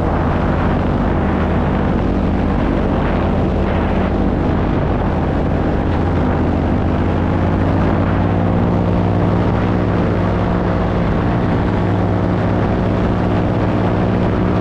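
Paramotor engine and propeller running steadily in flight, its pitch rising slightly in the second half.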